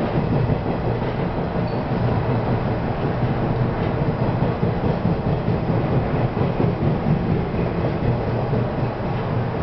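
Steady running noise heard inside the cab of a 475-series electric multiple unit: a dense, even low rumble of wheels on rail and the traction equipment as the train rolls along.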